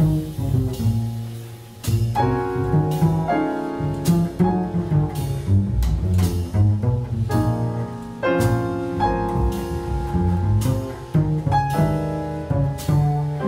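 Live jazz from piano and plucked double bass, with drums. Piano chords and a moving bass line are played against frequent sharp cymbal and drum strikes, with no horn playing.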